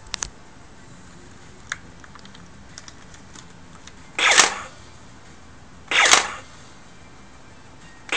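Lo-fi 8-bit sampled gunshot sound effect played through the small speaker of a homemade Arduino infrared laser-tag rifle: a short noisy blast about halfway through, a second under two seconds later, and a third starting at the very end. A few light clicks come first.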